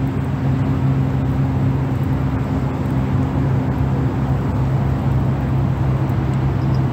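A motor running steadily: a constant low hum with a fainter, higher tone above it, over an even rushing noise.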